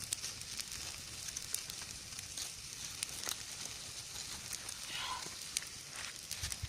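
Wood campfire burning: irregular sharp crackles and pops over a steady hiss.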